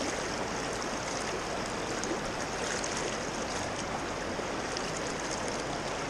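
River water rushing steadily, an even, unbroken hiss of running water.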